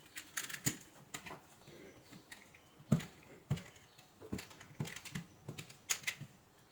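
Irregular light clicks and taps of small hard objects being handled, some sharper knocks about three seconds in and near six seconds.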